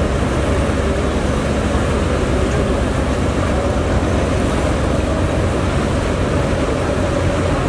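Steady low drone of river passenger launches' diesel engines running under way, mixed with the rush of churning water.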